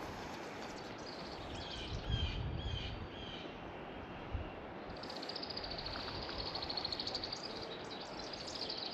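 Birds and insects calling over a steady rush of creek water: a few short high chirps, then a fast, high buzzing trill that runs for the last few seconds.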